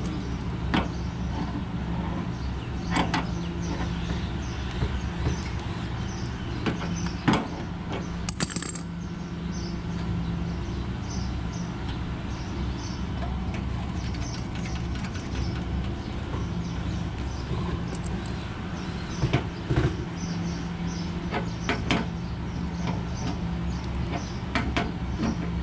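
Steady low mechanical hum with a held low tone. Over it come a few sharp clicks and taps of metal being handled at brass refrigerant line fittings and a hex key on a mini-split outdoor unit's service valves.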